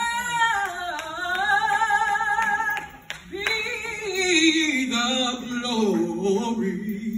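A woman singing a gospel solo into a microphone, holding long notes with vibrato. She breaks for a breath about three seconds in, then her line slides down to a low held note.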